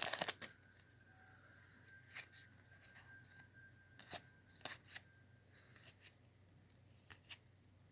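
Trading cards being handled: soft, scattered clicks, taps and rustles of card stock as the cards are sorted through, the sharpest ones at the very start.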